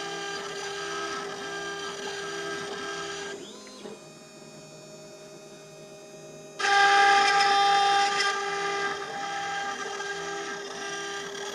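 CNC milling machine's spindle running with a small end mill engraving a metal plate: a steady whine made of several held tones. It drops quieter for about three seconds midway, then comes back louder and harsher, with one strong tone standing out for a second or two, before settling to a steady level.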